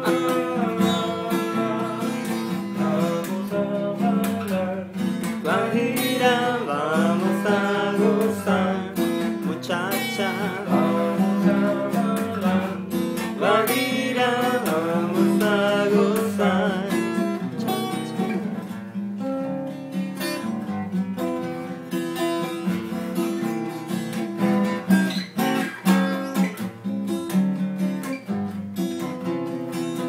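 Acoustic guitar strummed and picked in a steady rhythm, with a man singing over parts of it.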